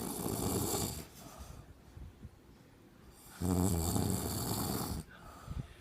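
An elderly woman snoring in her sleep: one snore ends about a second in, and a second, equally loud snore comes about halfway through and lasts about a second and a half.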